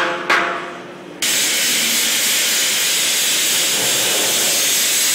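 Two sharp blows on a hanging bronze casting, each leaving a metallic ring, as its ceramic shell mould is knocked off. About a second in, a sudden switch to the loud, steady hiss of a sandblaster blasting the remaining shell off the rough bronze casting.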